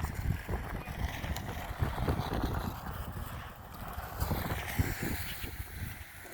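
Wind buffeting the microphone in irregular low rumbles over a steady hiss.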